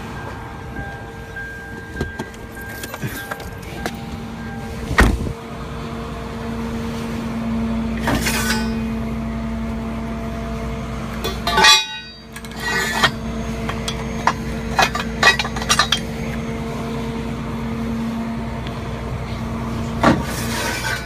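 A steady low hum throughout, with scattered clinks and knocks and a loud clatter about twelve seconds in.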